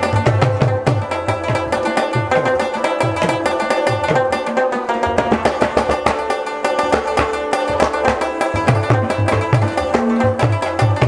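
Instrumental background music with a fast drum rhythm over sustained melodic notes. The low drum strokes slide down in pitch.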